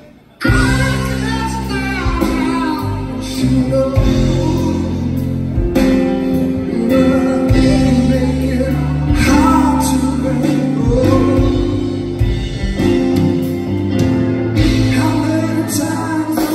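Live rock band playing: a man sings over keyboard and electric bass, amplified through the hall's PA. The sound cuts out briefly at the very start, then the music picks up again.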